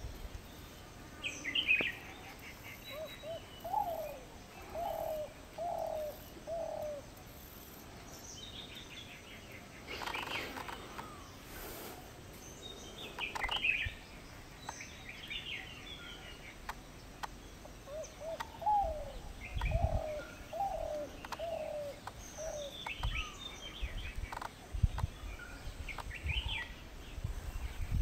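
Spotted dove cooing: two phrases of about five coos each, one a few seconds in and another about two-thirds of the way through. Higher chirps of other birds come and go in between.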